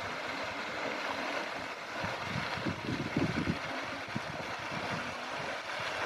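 Fountain water splashing steadily, with some low rumbles around the middle.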